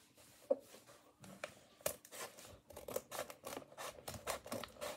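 Scissors cutting open a blind-bag packet: a series of short snips and crinkles, a few scattered ones at first, then coming quickly from about two seconds in.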